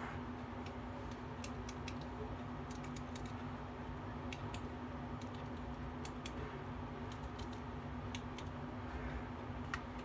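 Scattered light clicks and taps of mechanical pencils, among them a Rotring Tikky, being handled and knocked together, with a sharper click near the end.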